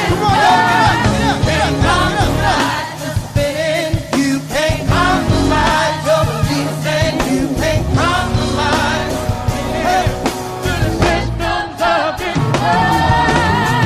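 Rock music with a sung lead vocal over a full band and drums.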